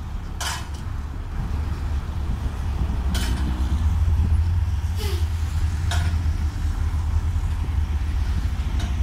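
Diesel engine of a ten-wheel dump truck running while it tips a load of soil, growing louder about two seconds in. Short bursts of air hiss cut in about four times.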